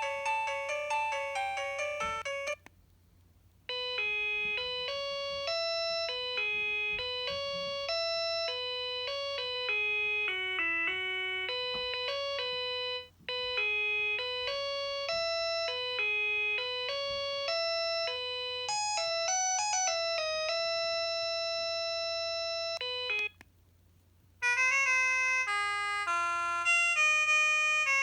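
Preloaded Mobiwire Aponi phone ringtones playing one after another, each an electronic melody of short notes. One tune ends about two and a half seconds in. A second plays and repeats after a brief break for about twenty seconds, then stops, and after a short pause a third begins.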